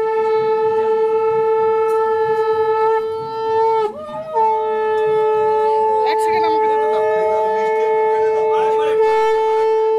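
Conch shell (shankha) blown in one long steady note. The note breaks off briefly about four seconds in for a breath, then is blown again and held.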